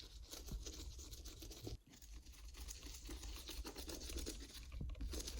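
Faint scrubbing as black patina is rubbed onto the soldered seams of a stained glass panel, broken by a brief pause about two seconds in.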